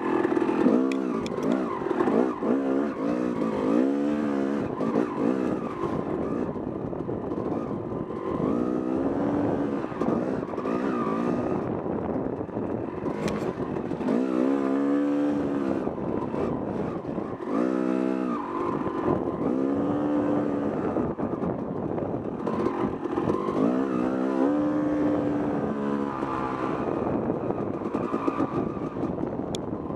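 Yamaha YZ250 two-stroke dirt bike engine heard from on board, revving up and falling off again and again as the rider works the throttle and gears along the trail.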